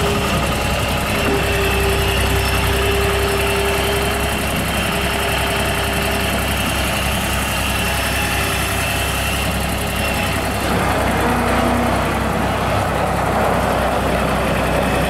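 New Holland LS180 skid steer loader's diesel engine running steadily, its tone shifting slightly about ten seconds in.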